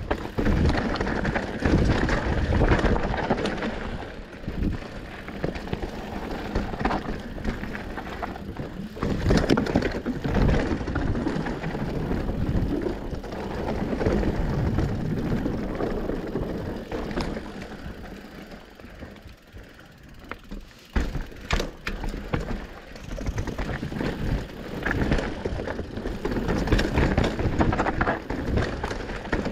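Mountain bike riding down a dirt trail: tyres rolling on dirt and the bike rattling, with several sharp knocks from bumps and landings, and a quieter stretch about two-thirds of the way through.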